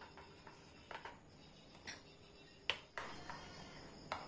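Metal spoon stirring thick semolina cake batter in a glass bowl: faint, soft clicks and scrapes of the spoon against the glass about once a second, the loudest a little before three seconds in.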